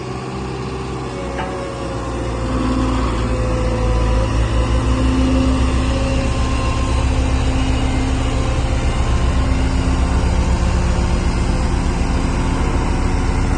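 Road roller's diesel engine running steadily, getting louder about two seconds in and then holding at that higher level.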